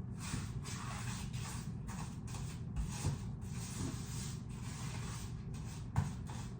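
Paintbrush strokes on a painted surface, a rapid run of short brushing swipes, two or three a second, with a low steady hum under them and a small knock about halfway through and another near the end.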